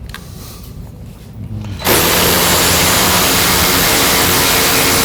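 A power tool starts abruptly about two seconds in and runs loud and steady, with a hissing, whirring noise.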